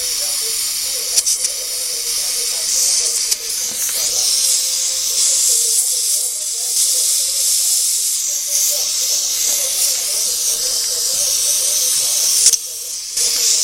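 A steady, loud, high-pitched hiss, with faint voices underneath.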